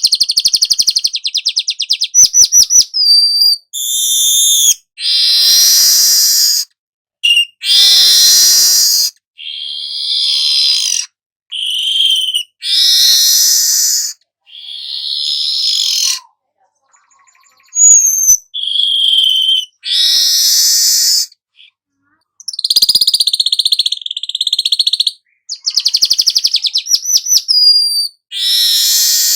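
Weaver (manyar kepala emas) singing a long run of short, varied phrases with brief gaps between them: rapid clicking trills, wheezy hissing passages and high clear whistles.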